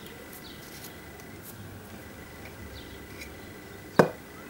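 A silver pair-cased pocket watch being handled, with one sharp knock about four seconds in as the watch is set down on the tabletop.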